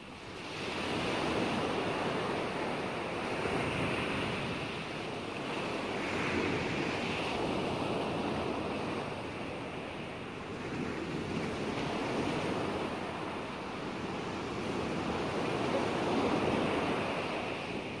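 Rushing water noise, likely from the camera underwater, rising about half a second in and then swelling and easing every few seconds.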